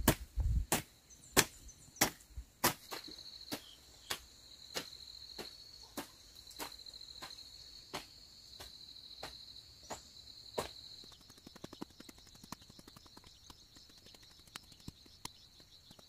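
Hoe striking into soil in steady, even strokes, about one and a half a second, the first few loud and the later ones fainter. A high, pulsing trill runs along with the strokes through the middle.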